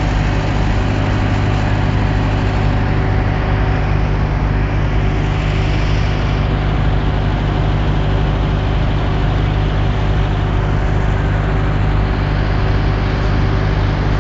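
A vehicle engine running steadily: a constant low hum under an even rushing noise.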